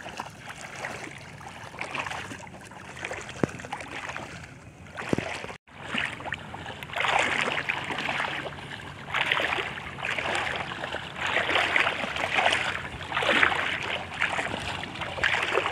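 Shallow water sloshing and splashing as people wade and drag a fishing net through it, in irregular swishes. The sound cuts out for a moment about halfway through, then the swishing comes back louder and more often.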